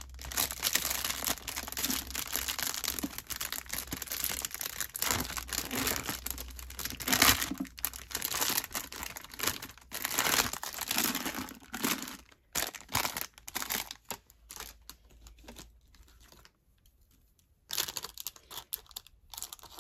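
Paper and plastic packaging crinkling and rustling as a wastebasket is rummaged through for a scrap of plastic. The rustling is dense for the first twelve seconds or so, then thins out, goes nearly quiet briefly and starts again near the end.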